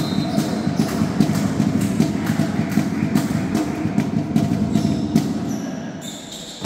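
Crowd noise in a sports hall, a dense rumble of many voices with frequent sharp knocks through it, dying down near the end.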